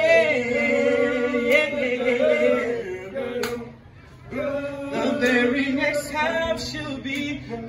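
A man singing into a handheld microphone, amplified through a portable speaker, in long held, wavering notes, with a short break about four seconds in.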